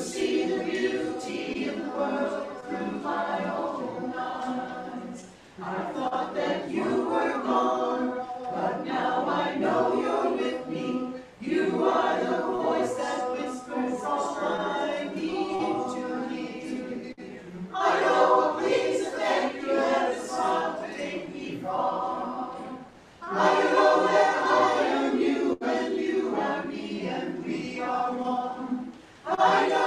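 Mixed adult church choir singing in parts, in phrases of about six seconds with short breaks for breath between them.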